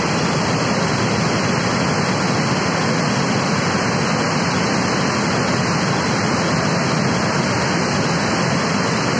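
The Yamuna River in flood: a torrent of floodwater rushing in a steady, unbroken roar.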